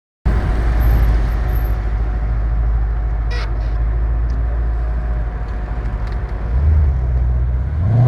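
Porsche Panamera 4S engine and exhaust rumbling at low speed as the car pulls out and creeps off. Its note rises and grows louder near the end as the car picks up speed.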